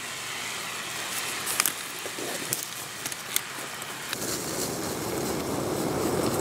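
Ground beef sizzling in a cast iron skillet over campfire coals: a steady hiss with a few sharp crackles. About four seconds in, a louder, lower rushing noise comes in for a few seconds.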